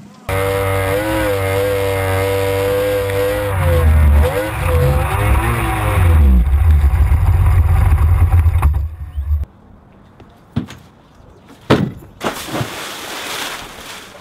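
Motor of a small inflatable speedboat running at speed, its pitch steady and then wavering up and down, with wind buffeting an action camera's microphone as a deep rumble. About nine seconds in it cuts off, leaving a quieter stretch with a few sharp knocks.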